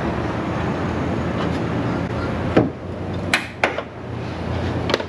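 Sharp metal clicks and knocks as a gas-charged hood support strut is levered off its ball-stud mounts: one about halfway, two close together a moment later, and one more near the end. A steady background rush fills the first half.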